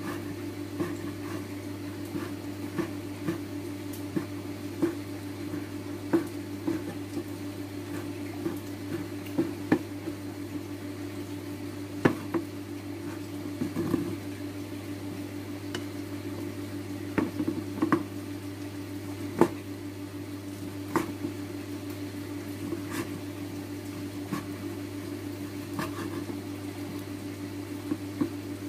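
Chef's knife chopping cooked pork on a wooden chopping board: irregular sharp knocks of the blade hitting the board, often one or two a second, over a steady low hum.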